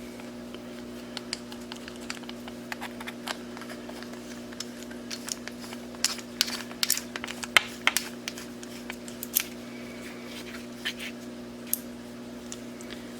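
Scattered light clicks and rustles from handling a small flashlight and its accessories, most of them around the middle, over a steady low hum.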